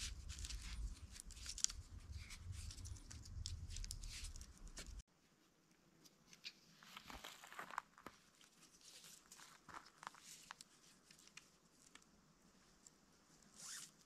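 Faint scraping and rasping of paracord being wrapped and pulled around a rough-barked tree trunk, with rustling of hands on the cord. A low rumble under the first part stops suddenly about five seconds in.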